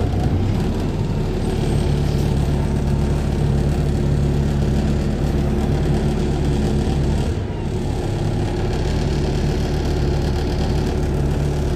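A bus's diesel engine running steadily, heard from on board, with a brief dip in level a little past the middle.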